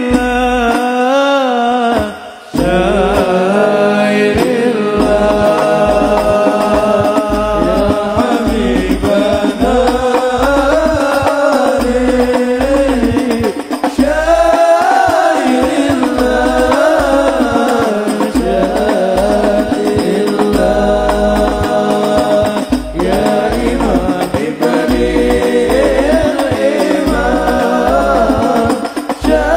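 Music with a voice singing a chant-like devotional melody, with a brief break about two seconds in.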